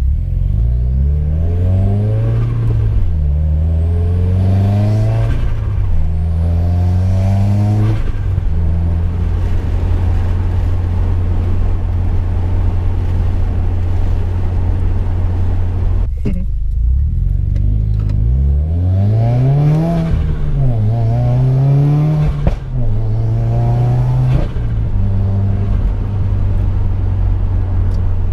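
2015 Subaru WRX turbocharged FA20 flat-four pulling hard through the gears twice. Each time the engine note climbs and drops back at every upshift, with a faint rising turbo whistle over it, and in between it runs steadily. A sharp sudden noise comes about midway, between the two pulls.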